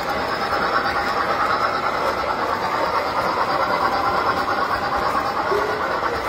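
Tinplate model trains running: a steady rattle and whine of toy-train wheels and motors on metal track, with a held tone coming in near the end.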